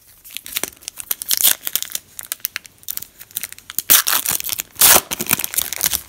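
A foil Panini Elite trading-card pack torn open by hand, the wrapper crackling and crinkling in a dense run of sharp crackles, loudest about four and five seconds in.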